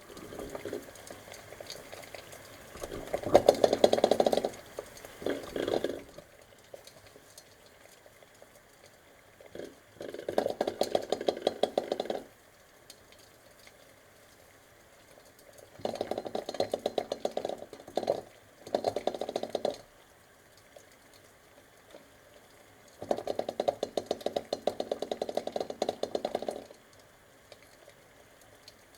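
A pot of eggs at a boil, rattling in several bursts of rapid ticking a few seconds long, with quieter stretches between.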